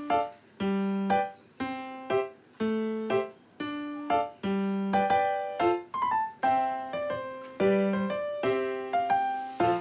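Background music: a gentle piano tune, single notes struck at a steady pace and left to ring and fade.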